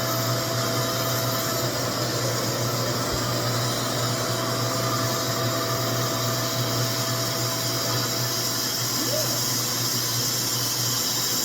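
RevAir reverse-air hair dryer running with steady vacuum suction, pulling a section of hair into its tube at tension setting 7 with no heat on.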